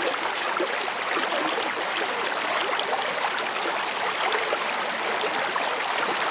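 Shallow creek rushing and splashing over rocks, a steady even rush of water.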